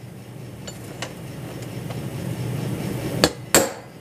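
Hammer held against a dented stainless steel trim strip and struck with a second hammer to tap the dent out: two sharp metallic taps about three seconds in, the second louder with a short ring, after a couple of faint ticks.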